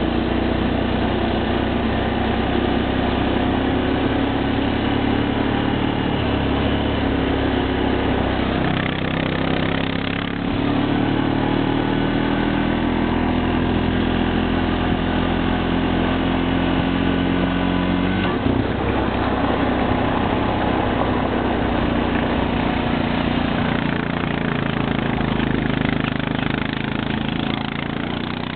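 Motor vehicle engine running steadily while driving. The engine note steps up about ten seconds in and drops back about eighteen seconds in.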